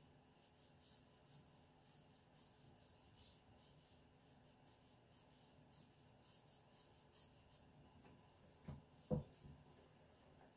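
Faint, quick strokes of a round watercolour brush on Arches 140 lb watercolour paper, a soft brushing hiss repeated many times. Two short low sounds come about nine seconds in, the second louder.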